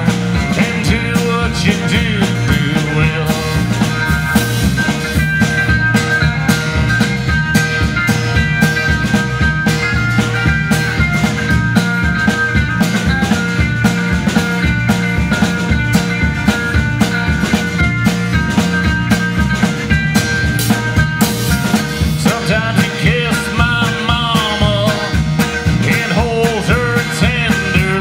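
Live country band playing an instrumental break with no singing: electric bass, drum kit keeping a steady beat and strummed acoustic guitar, with a melodic lead line of held notes over the top that turns to bending phrases near the end.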